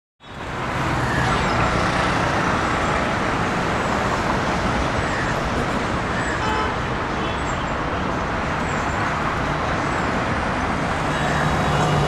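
Steady noise of busy city road traffic: engines and tyres running together, with a few short car-horn toots. It fades in at the very start.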